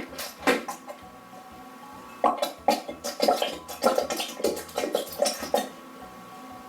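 Bottles and containers of slime ingredients being handled. A couple of sharp knocks come in the first second, then a quick irregular run of knocks and clatters from about two seconds in to nearly six.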